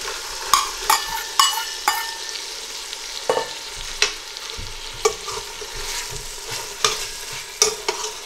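Peas tipped into frying onion-and-spice masala in a stainless steel pot and stirred in: a steady sizzle with repeated sharp clinks and scrapes of a metal spoon and bowl against the pot, ringing briefly in the first two seconds.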